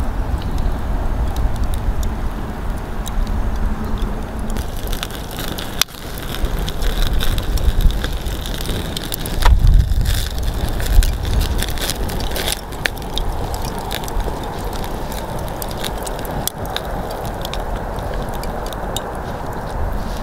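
Open campfire of charcoal and wood crackling and popping in a ring of stones, with many sharp snaps from about five seconds in. A steady low rumble runs underneath and swells briefly near the middle.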